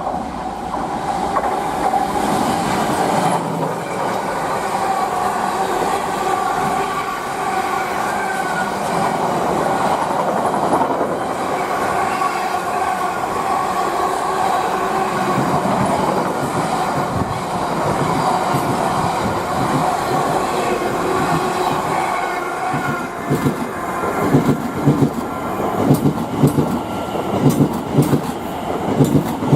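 Freight train passing at speed: a loud, steady rush of wagons over the rails with a held ringing tone from the wheels, then a rhythmic clickety-clack of wheels over rail joints in the last few seconds.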